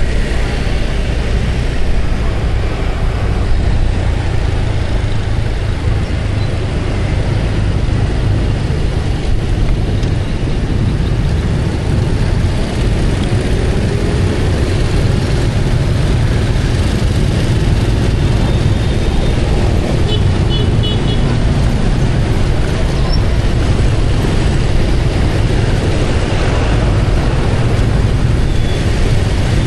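Steady road and traffic noise from riding a motorbike in dense motorbike traffic, with a strong low rumble.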